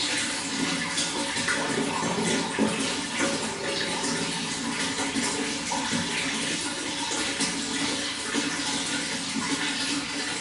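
Running water splashing in a steady, unbroken flow, full of small quick splashes.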